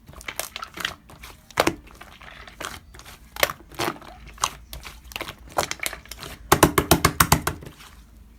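Slime being pressed and squeezed by hand, making irregular sticky clicks and pops, with a quick run of pops about six and a half seconds in.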